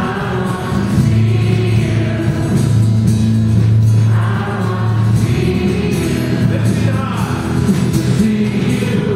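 Live worship band: men's and women's voices singing together over acoustic guitar, electric bass and keyboard.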